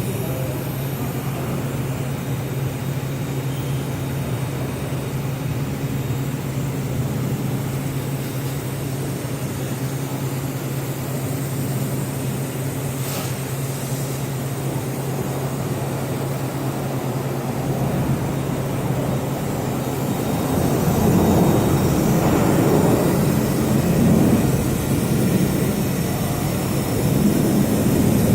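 Plasma welding equipment running: a steady low electrical hum under an even rushing hiss, which grows louder and rougher about two-thirds of the way through.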